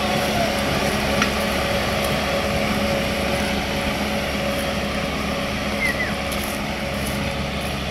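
Eco Master 554 tractor's diesel engine working steadily under load, pulling an 18-disc harrow through dry soil in two-wheel drive. The sound eases slightly as the tractor draws away.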